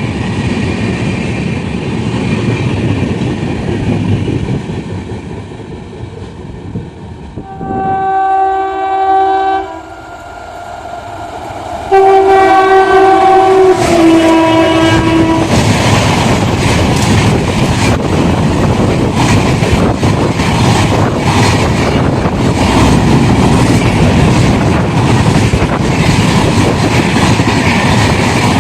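An Indian Railways locomotive horn sounds two long chord-like blasts, the second stepping down in pitch, as a train approaches. The train then rushes past loudly, its wheels clattering over the rail joints.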